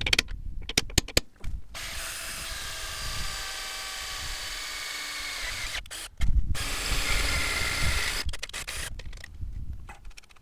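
Power drill boring a hole into the Jeep Wrangler JL's steel frame, running steadily for about four seconds, stopping briefly, then running again louder for a couple of seconds. Clicks and knocks of handling come before and after.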